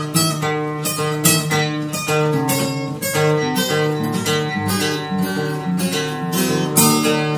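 Acoustic guitar strummed in a steady, even rhythm, its chords ringing on between strokes.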